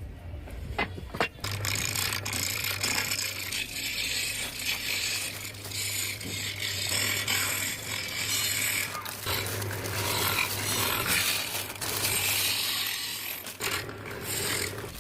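An electric power tool running against wood: a steady motor hum under a rough, scraping hiss. It starts about a second and a half in, breaks off briefly around the middle, and eases off near the end.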